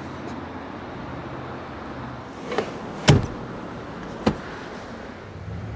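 Rear seatback of a 2014 Jeep Grand Cherokee SRT being lifted back upright and latching: a few sharp clunks and knocks, the loudest about three seconds in, over a low steady hum.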